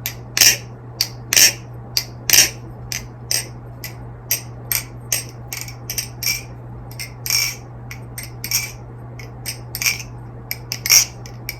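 An NRB Vortex balisong (butterfly knife) being flipped: its 6061 aluminium channel handles and blade clack sharply as they swing around and latch, a quick uneven run of bright clicks, about one to two a second, with a sound the flipper calls "so glossy". A faint steady low hum runs underneath.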